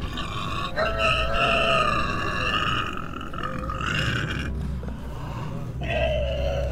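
Processed, voice-like sound design: two long, held, low tones, the first from about a second in to past four seconds and the second starting near the end, over a steady low rumble.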